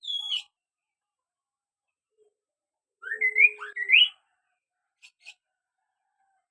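Kaso-kaso bird singing clear whistles. A short falling note opens; after a pause of nearly three seconds comes a quick phrase of about four rising whistled notes, followed by two faint ticks.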